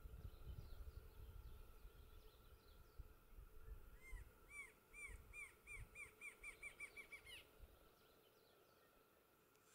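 Rufous-winged antshrike (Thamnophilus torquatus) singing, starting about four seconds in: a series of about a dozen arched notes that come faster and faster, lasting about three seconds.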